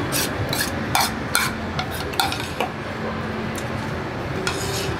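Metal spoon scraping and clinking against a ceramic bowl, scooping up the last of the chili: a quick run of short scrapes over the first two and a half seconds, then another near the end.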